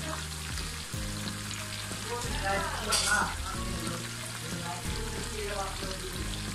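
Egg-and-crumb-coated chicken pieces deep-frying in hot oil on a lowered flame, a steady bubbling sizzle, as tongs turn the pieces over. A brief louder crackle comes about three seconds in.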